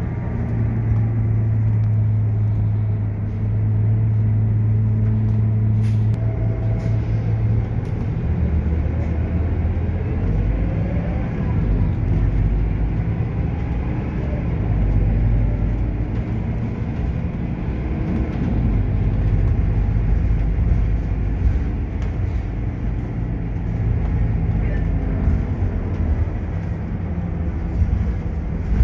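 Scania KUB city bus heard from inside the passenger cabin while driving: a steady, low diesel engine drone that drops lower about eight seconds in, then rises and falls with the bus's speed over continuous road rumble.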